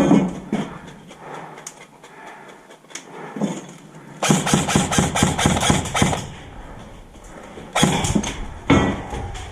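Airsoft gun fired in a rapid automatic burst of sharp snapping shots, about two seconds long, starting about four seconds in. It is framed by a few single loud knocks or bangs at the start and near the end.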